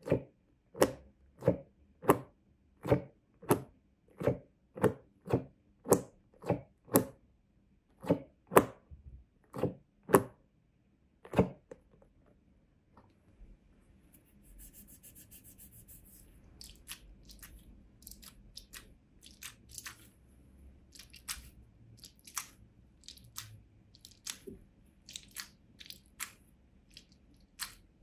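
A rubber squishy toy squeezed by hand over and over, a sharp squelch about one and a half times a second, for the first half. After that come quieter, scattered clicks and taps as toys are handled and a mesh stress ball is picked up.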